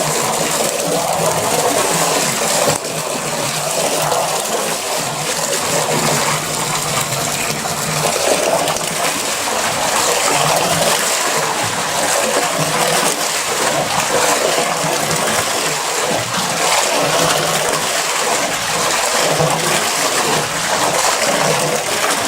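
Water from a pump hose gushing and splashing steadily against the foot of a closed garage door, pooling against its flood seal.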